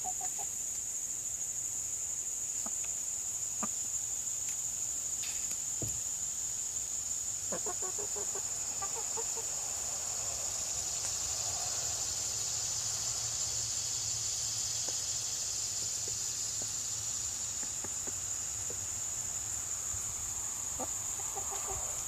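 Chickens clucking a few times, mostly about eight to ten seconds in, over a steady high-pitched drone.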